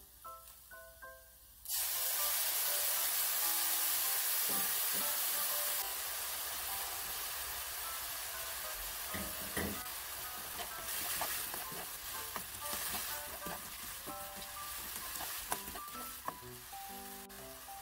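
Liquid seasoning hitting a hot frying pan of browned daikon and chikuwa sets off a sudden loud sizzle a little under two seconds in. The sizzling eases after a few seconds but keeps going as more seasoning goes in and the pieces are stirred, with light clicks and scrapes of the utensil on the non-stick pan.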